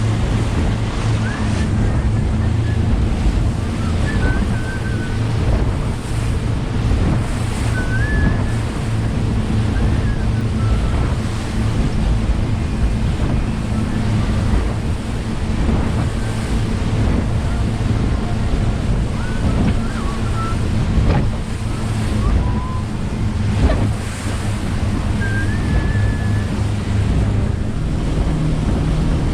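Twin Yamaha 150 outboard motors running steadily under way, with water rushing past the hull and wind buffeting the microphone. The engine note steps up near the end.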